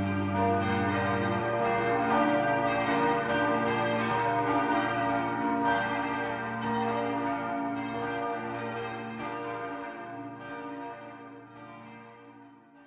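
Church bells pealing, several bells struck one after another and ringing on, fading away over the last few seconds.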